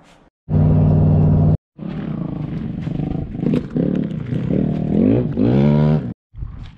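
Honda CRF450R dirt bike's 450 cc single-cylinder four-stroke engine running, first at a short steady idle, then revved up and down in a string of throttle blips. The sound cuts off abruptly a few times.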